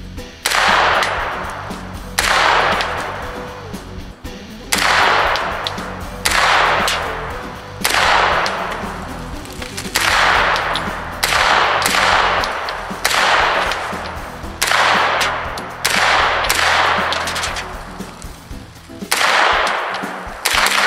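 Colt AR-15 9mm carbine firing single semi-automatic shots, about a dozen spaced one to two seconds apart, each followed by a long fading echo.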